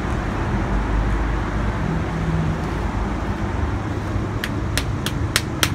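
Steady traffic noise in the background. Near the end come five quick, sharp taps from a small metal bracket being worked onto a wooden tool handle to hold it tight.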